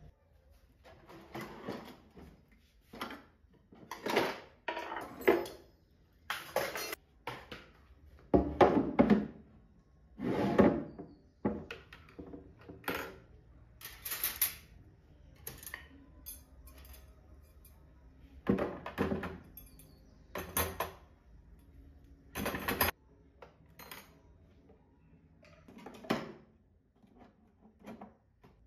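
Irregular knocks, thuds and clatters of household objects being handled and set down in a small room, with the loudest cluster about a third of the way in.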